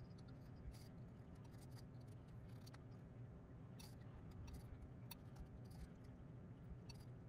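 A small carving knife cutting into a wooden board along a drawn outline: faint, crisp snicks and scrapes of the blade, scattered irregularly, over a low steady hum.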